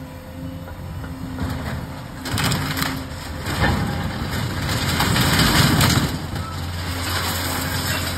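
Scrap metal crunching and clattering as a magnet grapple on a Cat MH3040 material handler bites into a scrap pile and pulls a load free. The crashing builds about a second and a half in, is loudest in the middle, and eases off near the end, over a steady low hum.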